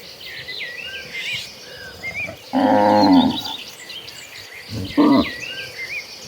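Cattle mooing: a loud moo from about two and a half to three seconds in, then a second, briefer call around five seconds, over many small bird chirps.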